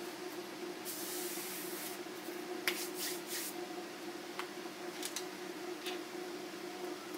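Small handling noises at a desk: a short paper-like rustle about a second in, then a handful of light clicks and taps as a phone and earphone cable are picked up, over a steady low hum.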